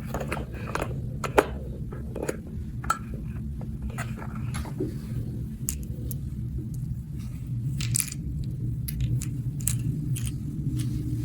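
Irregular light clicks and clinks of small hard objects being handled, with a sharper click about a second and a half in, over a steady low hum.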